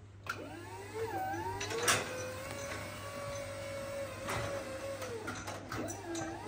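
Skyjack SJIII 4626 electric scissor lift driving: its electric drive motor whines, rising in pitch as it gets going, holding steady, then dipping and rising again near the end. A couple of sharp clicks come through over the top.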